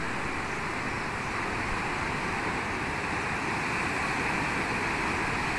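Floodwater of a swollen river rushing steadily against a low bridge, an even rushing noise.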